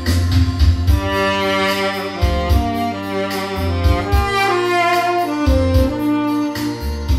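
Tenor saxophone with a metal mouthpiece, played dry without effects, carrying a slow melody of held notes over a backing track with bass and a steady drum beat.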